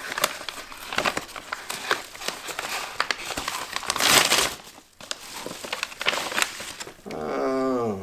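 Paper and packaging being handled and unfolded, crinkling and rustling, with a louder rustle about four seconds in. Near the end a man gives a short hum that falls in pitch.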